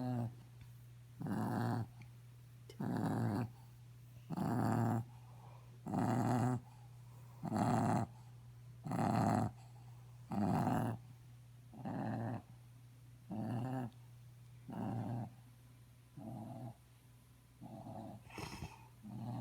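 A dog snoring in a regular rhythm, one snore about every second and a half. The snores grow weaker and less regular over the last few seconds, over a low steady hum.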